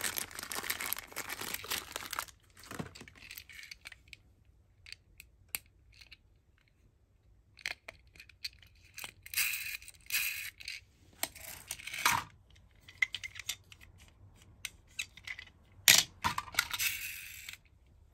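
Clear plastic wrapping crinkling and rustling as a small die-cast toy ambulance is pulled out of its bag, with scattered light clicks between bursts. Near the end a sharp clack, the die-cast toy set down against the other toy cars, followed by more rustling.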